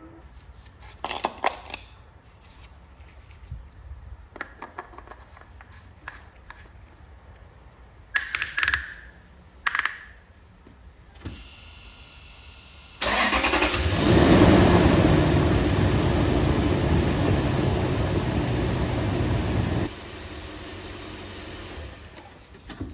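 A few clicks and knocks, then about 13 s in the Lexus GX470's 2UZ-FE 4.7-litre V8 starts and runs loudly for about seven seconds, its first start on fresh oil after the oil change. Near the end the sound drops to a lower, steady level.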